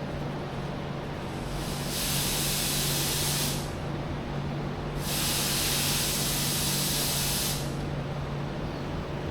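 A pressurised spray hissing in two bursts, the first about one and a half seconds long starting about two seconds in, the second about two and a half seconds long, over a steady low hum.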